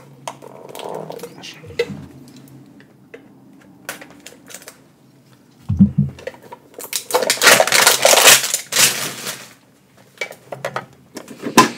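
A small metal Pokémon card mini tin being handled and opened: scattered clicks and metallic clatter as the tin and its contents knock about, a dull thump about six seconds in, then a loud rustle of packaging for a couple of seconds.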